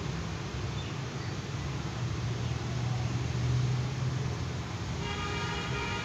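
Steady low rumble of passing traffic that swells in the middle, with a vehicle horn sounding for about a second near the end.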